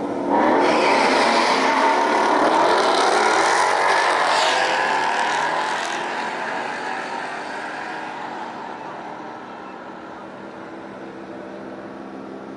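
A car launching hard down a drag strip under full throttle: a sudden loud start, the engine's pitch climbing through the gears, then the sound fading steadily as it pulls away.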